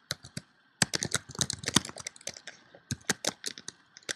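Typing on a computer keyboard: short key clicks that pause briefly near the start, come in a quick run from about a second in, then go on as scattered keystrokes.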